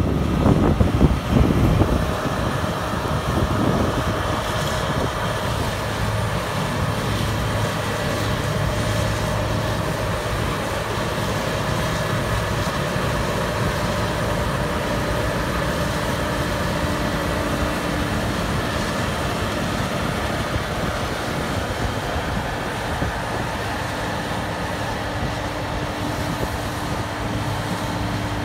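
Claas Lexion 570+ combine harvester cutting spring barley: a steady engine and threshing-machinery drone with a steady whine that drops in pitch about halfway through, as the machine passes and draws away. Wind buffets the microphone in the first couple of seconds.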